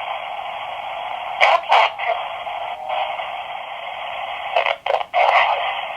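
S Box spirit box sweeping radio frequencies: a steady band of radio static, broken by short louder snatches of radio sound about a second and a half in and again around five seconds in.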